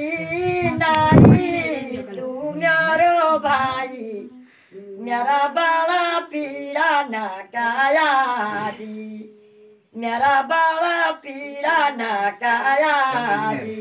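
Women's voices singing, unaccompanied, in phrases broken by short pauses. A loud thump about a second in.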